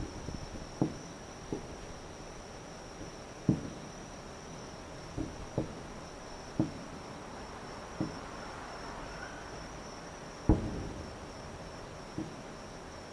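Aerial firework shells bursting in the distance: a series of dull booms, about nine of them, spaced irregularly, with the loudest about ten and a half seconds in. A steady high insect chirr runs underneath.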